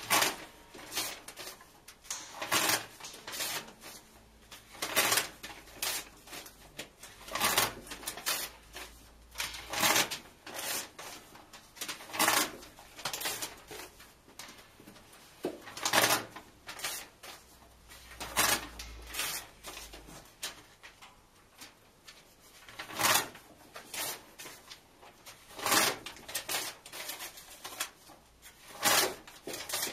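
Paper book pages being ripped out and torn in half by hand: short, sharp rips at an uneven pace, one every second or two.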